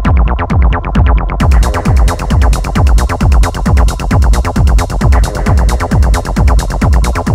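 Berlin-style acid techno track with a steady kick drum at about two beats a second and synthesizer sounds. A bright, hissing high layer comes in about a second and a half in.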